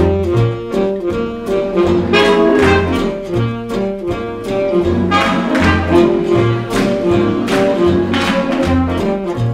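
Big-band swing music: horns playing over a bass line and a steady, even beat.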